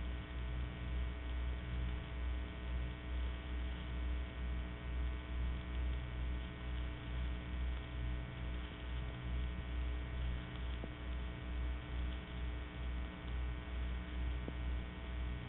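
Steady electrical mains hum with a low throb that swells and fades two or three times a second. No speech or voice is heard.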